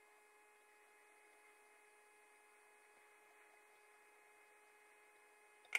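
Near silence: a faint steady electrical hum, with one short sharp click near the end.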